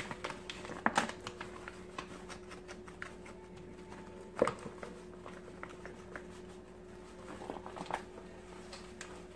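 Paper flour bag rustling as tortilla flour mix is poured softly into a plastic mixing bowl, with a few sharp taps, the loudest about four seconds in. A faint steady hum runs underneath.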